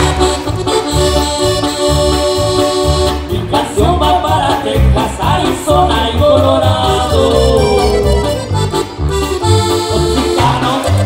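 Live Tierra Caliente band music: an accordion-voiced melody over a steady bass beat, played loud.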